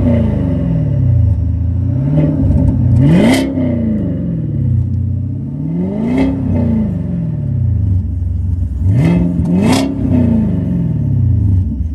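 6th-generation Chevrolet Camaro SS's 6.2 L V8 with an axle-back muffler delete (straight pipe) being revved in repeated blips, about four, each falling back to idle, the last a quick double rev before it settles to idle near the end.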